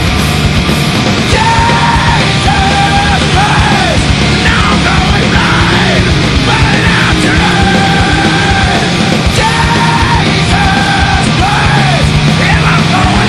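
Loud hard rock music with yelled vocals, dense and continuous.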